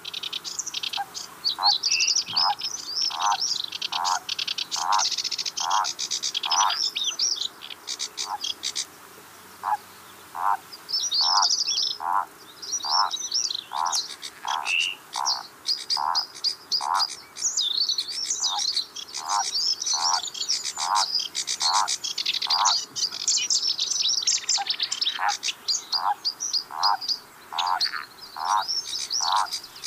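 A frog calling a steady series of short, evenly spaced croaks, about two a second, with songbirds singing busily and high-pitched over it.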